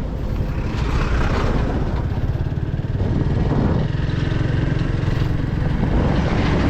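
Motorcycle engine running steadily while riding, heard from on the bike, with a low rumble and road and wind noise.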